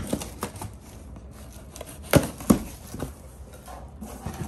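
A taped cardboard box being opened by hand: packing tape tearing and cardboard flaps being pulled apart and scraped, with two sharp knocks about two seconds in.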